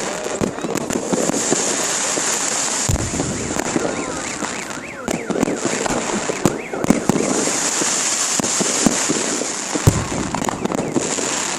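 Fireworks display: continuous crackling and popping of bursting shells with a hissing sizzle, and two deep booms about three and ten seconds in.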